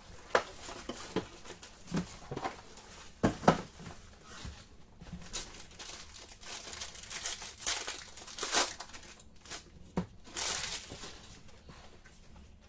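Foil trading-card pack wrapper being torn open and crinkled by hand, in irregular crackles and rips. The loudest come about three and a half, eight and a half, and ten seconds in.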